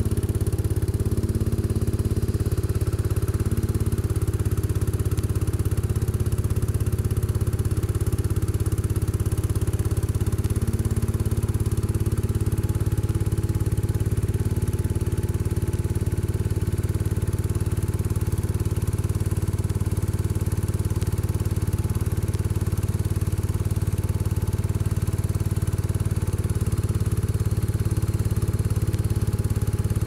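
1975 Case 224 garden tractor's engine running steadily while it powers a homemade hydraulic log splitter.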